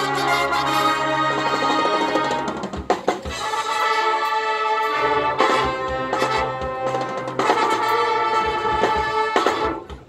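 Marching band playing its field show: the brass section holds loud, full chords over low sustained notes, with bass drums and percussion striking beneath, the sound dropping away briefly near the end.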